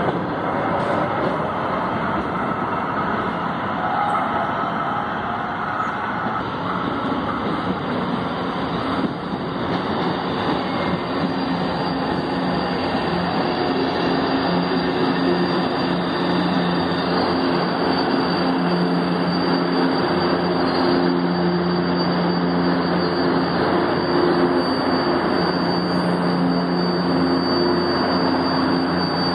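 Electric metro train pulling into the station platform: a whine that falls in pitch as it slows over the first several seconds, then a steady electrical hum with several low tones while it stands at the platform.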